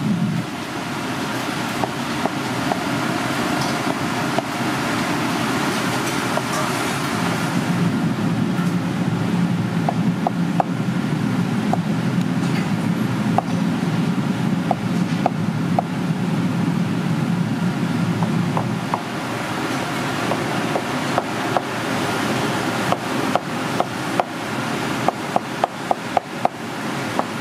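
Kitchen knife chopping mushrooms on a wooden cutting board: sharp knocks, scattered at first and coming in quick runs near the end, over a steady rushing background noise.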